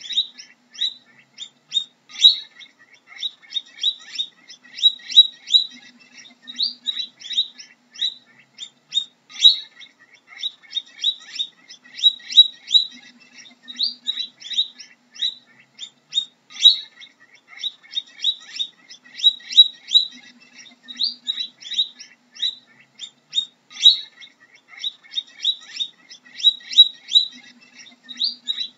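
Guinea pigs squeaking: a continuous run of short, high-pitched squeaks, several a second.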